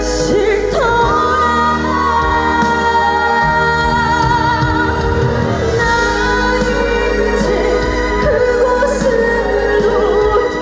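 A woman singing a trot-style song live over band backing music, her voice sliding between notes over sustained accompaniment.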